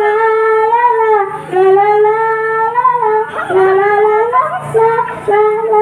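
A young girl singing a slow solo line through a microphone, drawing out long held notes in several phrases with short breaks between them.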